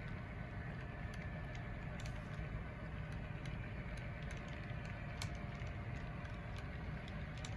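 HO scale model train running: a steady low rumble with faint steady tones and scattered light clicks.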